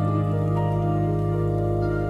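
Slow new-age ambient music: long held notes over a steady low drone.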